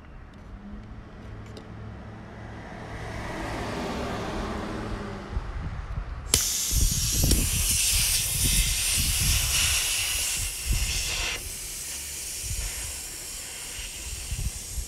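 Compressed air hissing out of a freshly cut air-suspension line on an Audi A8 L: a softer hiss swells over the first few seconds, then a loud hiss starts abruptly about six seconds in, eases after about five seconds and carries on softer. The air springs are emptying and the car is sinking down ("aired out").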